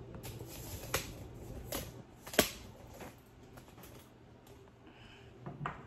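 Handling noise: a few sharp clicks and knocks, the loudest about two and a half seconds in, over a faint low hum.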